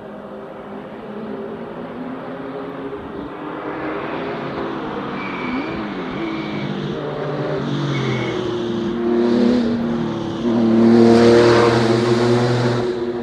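Porsche 911 Carrera RS rally car's air-cooled flat-six approaching hard, its revs rising and dropping through gear changes, echoing off the rock faces. It grows louder to its loudest a couple of seconds before the end.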